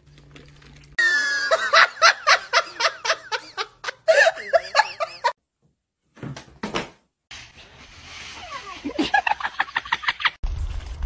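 People laughing in quick repeated bursts for about four seconds, then after a short break more laughter in a rapid run near the end.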